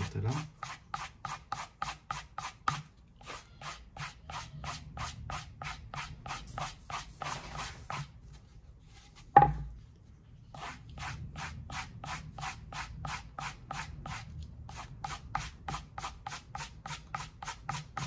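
A Victorinox floral knife's blade drawn in quick, even strokes across a sharpening surface, about four strokes a second, as the edge is finished. About nine seconds in there is one loud knock, the loudest sound, and a short pause before the strokes start again.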